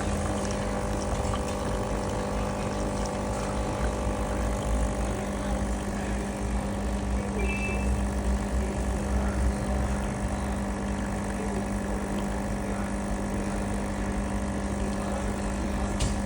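Steady machine hum with a low rumble and a constant mid-low tone, unchanging throughout.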